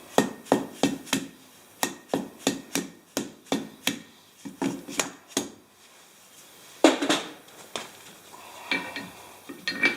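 Irregular sharp metallic clinks and knocks, a few a second, with a louder knock about seven seconds in, as a fishing magnet and its carabiner are shifted and centred on a steel anvil.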